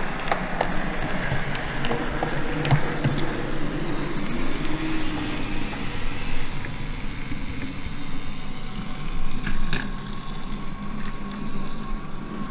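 N gauge model Class 150 diesel multiple unit running along the layout track: a steady mechanical running sound from its motor and wheels, with a few sharp clicks as it passes over rail joints and points. A thin steady whine comes in near the end.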